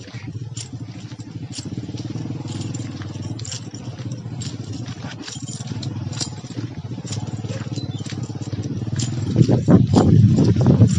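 Small motorcycle engine running steadily while riding along a rough narrow path, with frequent light clicks and rattles. It grows louder and rougher near the end.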